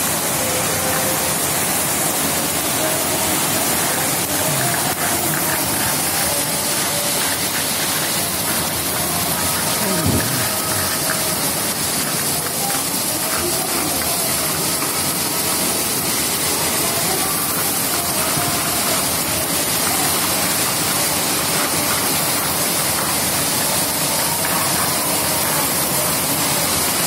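Torrential rain pouring down steadily, a dense unbroken hiss of downpour on roofs and the flooded street.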